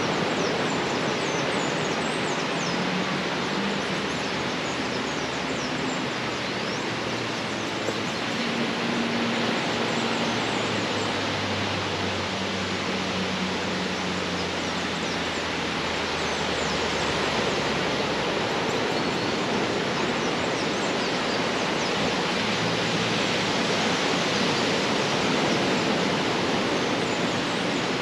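Steady rushing noise of water, surf and rain, with a faint low hum for several seconds in the first half.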